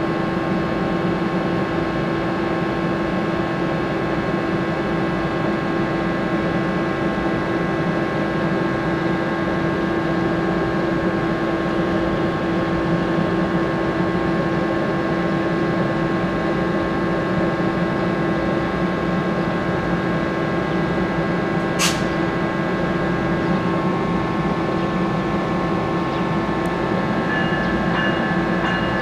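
NJ Transit ALP-45A locomotive standing at the platform with its on-board equipment running: a steady hum with several held tones. A single sharp click comes about two-thirds of the way through, and near the end new higher-pitched tones join the hum.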